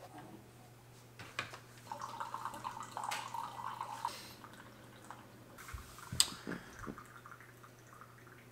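Quiet kitchen handling sounds: scattered clicks and knocks of cupboard and fridge doors, a couple of seconds of water running about two seconds in, and a sharp click about six seconds in, over a low steady hum.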